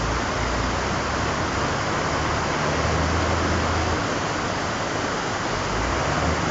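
Steady rushing noise, with a truck's diesel engine droning low beneath it as it labours slowly across mud and rubble. The drone swells briefly about three seconds in and again near the end.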